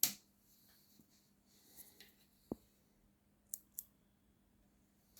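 A few sharp clicks over a faint steady hum: a loud click at the start, a dull tap about halfway, then two quick high clicks. They come from someone handling a computer that won't power on.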